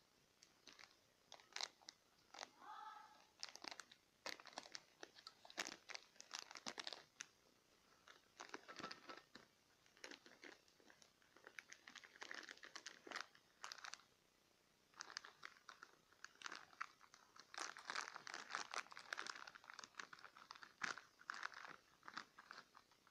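Clear plastic wrapping crinkling and crackling in irregular clusters as it is handled and worked off a new wristwatch.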